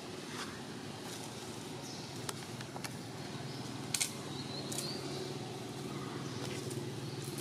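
Outdoor ambience with a steady low hum like a distant engine. A few sharp clicks stand out, the loudest about four seconds in, with a brief high chirp just after.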